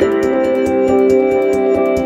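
Background music: sustained synthesizer chords over a quick, steady ticking beat.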